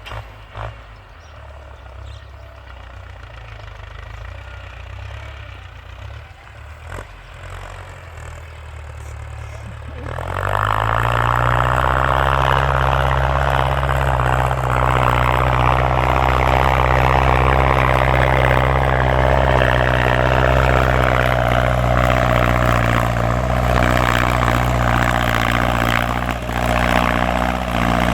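Ford farm tractor's engine ticking over low, then revving up quickly about ten seconds in and running loud and steady at high revs.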